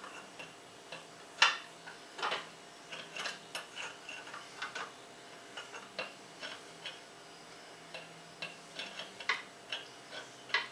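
Irregular light clicks and knocks of an outboard lower unit bumping against its exhaust housing as it is shifted about to line up the driveshaft and water tube, on a 1959 Evinrude Fastwin. The sharpest knocks come about a second and a half and two and a quarter seconds in.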